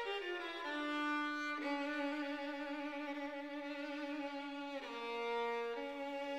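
Background music: a solo violin playing a slow melody of long held notes with vibrato, one note held for about three seconds.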